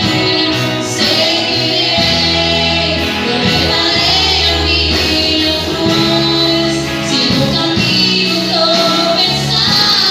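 Christian worship song: a lead voice singing over steady band accompaniment.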